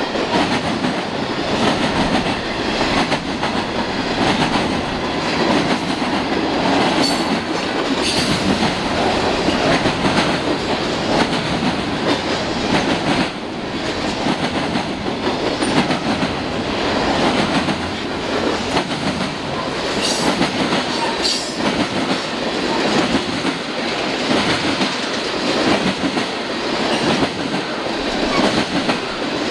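Freight cars of a long CN freight train rolling past, their wheels clacking steadily over the rail joints, with a few short high squeaks from the wheels.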